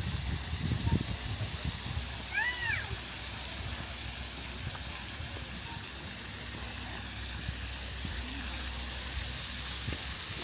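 Outdoor background noise with a steady low rumble and faint distant voices; about two and a half seconds in, one short high-pitched squeal that rises and falls.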